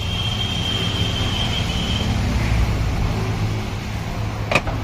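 Steady traffic rumble, with a thin high-pitched tone for the first two seconds and a single sharp clack near the end.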